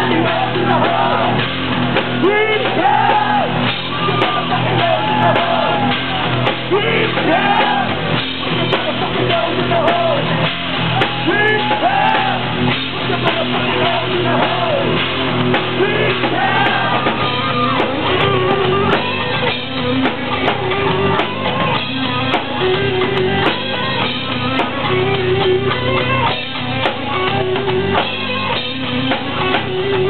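Rock song with a singing voice over guitar and drums. Past the midpoint a short high riff repeats about once a second.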